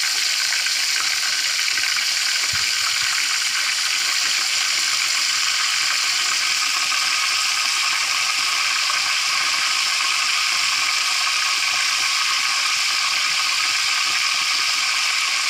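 Hot oil sizzling steadily around a whole fish frying in a wok, an even, unbroken hiss.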